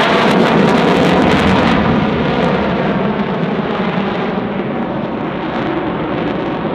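Saab JAS-39C Gripen's single Volvo RM12 jet engine at full display power, a loud, dense roar crackling for about the first two seconds, then duller as the high end fades away.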